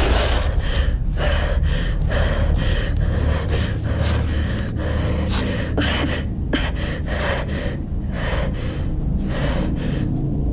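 A young woman gasping and panting in distress, quick ragged breaths one after another, over a steady low rumble.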